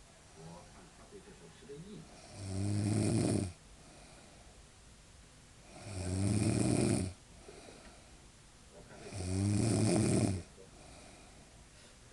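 A woman snoring in deep sleep: three long pitched snores, each lasting a little over a second, coming evenly about every three and a half seconds, with quiet breathing between.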